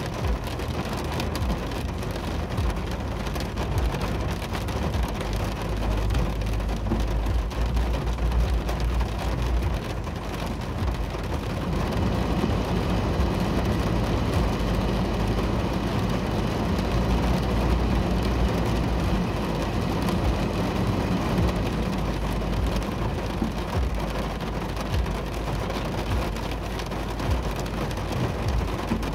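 Heavy rain drumming on a car's roof and windshield, heard from inside the cabin: a steady hiss full of small drop taps over a low rumble, a little louder about halfway through.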